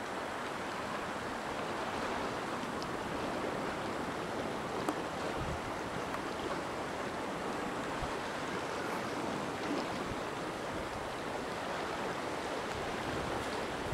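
Steady hiss of rain falling, with a single light tick about five seconds in.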